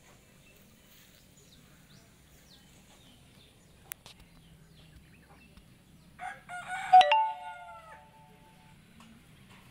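A rooster crows once about six seconds in. The call has short opening notes and ends in a long held note that fades out.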